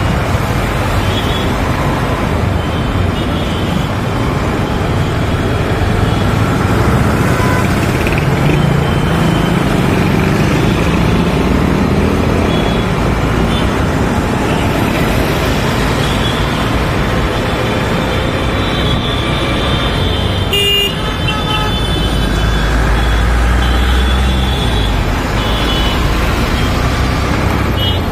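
City traffic heard from a moving motorbike: steady wind and road noise with engine sound, and short horn toots from nearby vehicles now and then. A brief click and dip in the sound about two-thirds of the way through.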